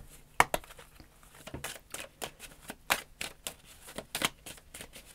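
A deck of cards being shuffled and handled by hand: a string of irregular, sharp card clicks.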